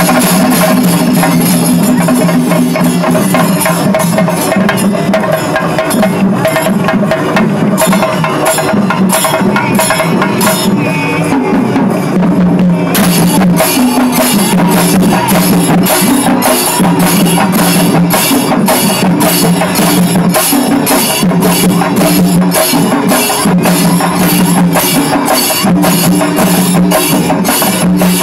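Chendamelam: a Kerala chenda drum ensemble playing with clashing ilathalam cymbals. Low, held tones that step in pitch run underneath. About halfway through, the strokes settle into a dense, even beat of about three a second.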